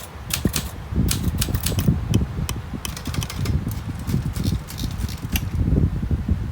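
Brother Valiant manual typewriter keys striking: scattered strokes, thinning out about halfway through, over a low rumbling noise.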